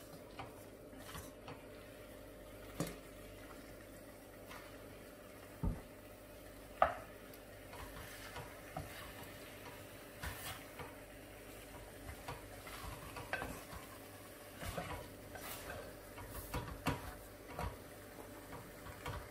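A cooking utensil stirring chunks of beef in rendang spice paste in a stainless-steel pot, with scattered scrapes and knocks against the metal and a faint sizzle of the meat frying. The sharpest knock comes about seven seconds in.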